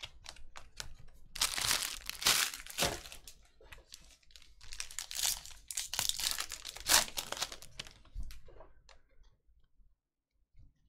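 Foil wrapper of a Panini Mosaic basketball card pack being torn open and crinkled, in two loud spells of crinkling. Light clicks of stiff trading cards being handled come before and after.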